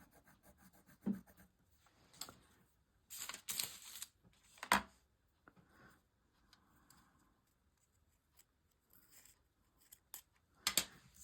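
Brown Stabilo pencil scratching and tapping on a paper page in a few short scrapes and clicks, its tip gummed with matte medium so that it won't write.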